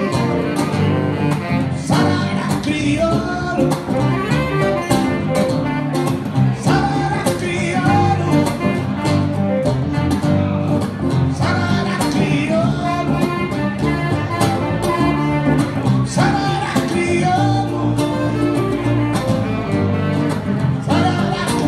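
Live saxophone, guitar and electric bass trio playing: the saxophone carries a flowing melody over strummed guitar chords and a steady bass line.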